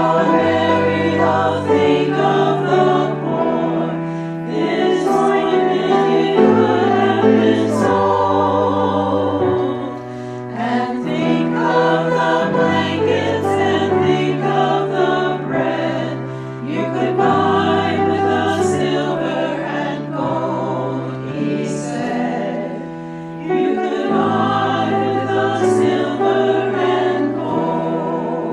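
Church choir singing a hymn in several parts, over held low notes that move step by step.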